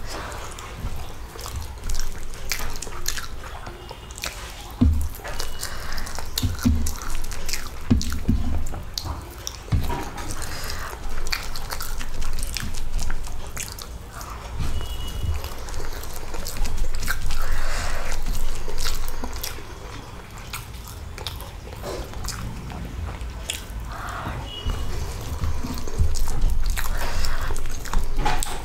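Close-up eating sounds: chewing and wet mouth smacks on mouthfuls of rice mixed with potato curry, eaten by hand, with the soft squish of fingers mixing rice on a steel plate.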